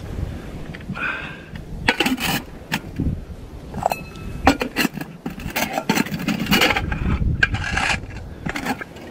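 Small stainless steel pots and lids clinking, knocking and scraping against each other and the rock as a lid is fitted onto a container. There is a brief metallic ring about four seconds in.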